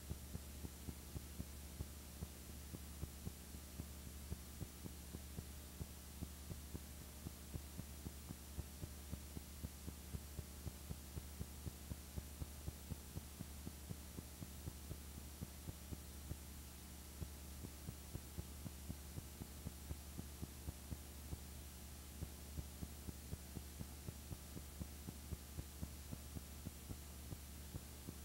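Faint steady low electrical hum with light clicks, about two or three a second, on a soundtrack with no other sound.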